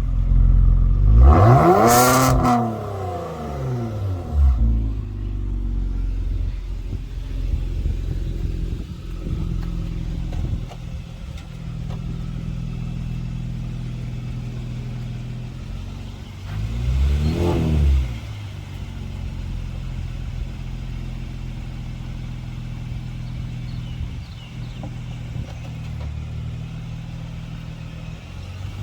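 Kia Stinger's engine through an MBRP cat-back exhaust, running with a steady low drone. The revs climb and drop back sharply about two seconds in, and again, more softly, a little past halfway.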